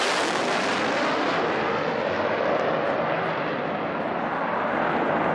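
Two Dassault Mirage 2000 fighter jets flying past with a loud, steady jet roar. The high hiss is strongest at first and dulls gradually as they draw away.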